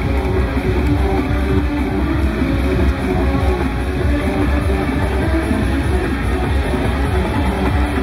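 Loud, heavily distorted hardcore techno (gabber) with a fast, heavy beat, played over a parade sound truck's sound system.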